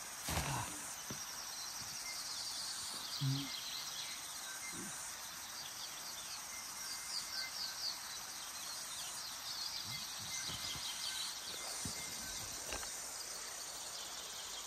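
Quiet outdoor ambience: a steady high hiss with faint repeated high chirping calls, and a few soft low knocks in the first few seconds.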